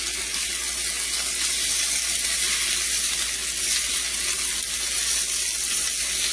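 Sliced potatoes frying in hot oil in a pan: a steady sizzle with fine crackling.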